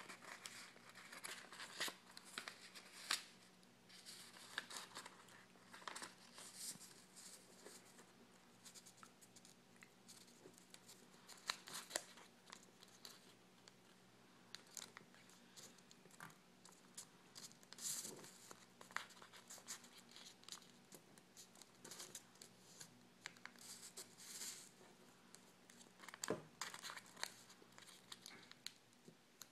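Origami paper being handled, folded and creased by hand: faint, irregular rustles and crinkles with short sharp taps as the folds are pressed down.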